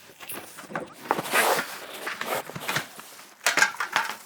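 Packaging being handled during an unboxing: irregular rustling and scraping of cardboard and plastic, with a few sharp knocks near the end.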